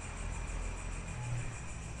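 Quiet background music: a steady drone bed with faint held high tones and a low hum, with no distinct events.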